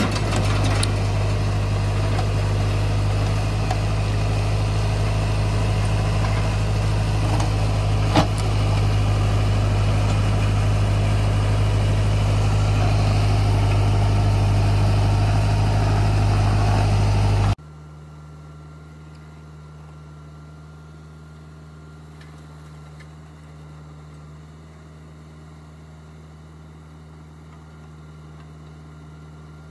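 Mahindra tractor's diesel engine running steadily as it powers a rear-mounted backhoe digging soil, with one sharp knock about 8 seconds in. About 17 seconds in the sound drops suddenly to a much quieter steady engine hum.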